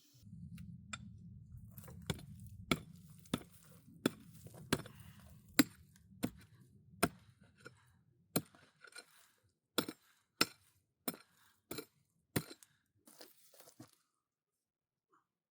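A steady run of sharp blows from a hand tool in building work, about three every two seconds, stopping shortly before the end. A low rumble runs under the first half.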